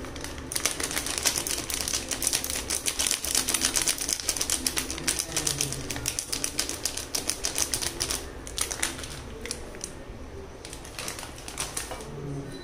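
Crinkling of a plastic sattu packet as it is squeezed and shaken to pour the flour into a bowl: a dense run of crackles that thins to a few scattered ones near the end.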